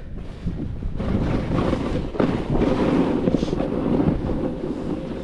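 Wind rushing over the microphone mixed with the hiss and scrape of a snowboard riding through snow at speed, growing louder about a second in.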